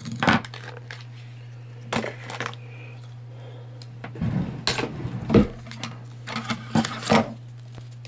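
Small metal multi-tool set down with a clack on a wooden desk, then scattered knocks and clatter of handling, loudest a little past the middle, over a steady low hum.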